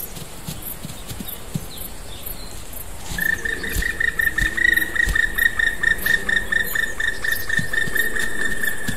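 A bird calls a rapid, even run of one clear high note, about four a second, starting about three seconds in and going on to the end. Throughout, insects chirp in a fast, steady ticking.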